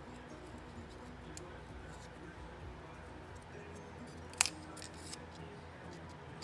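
Garden snips cutting through a wooden craft stick: one sharp snap about four seconds in, with a few faint clicks of handling around it.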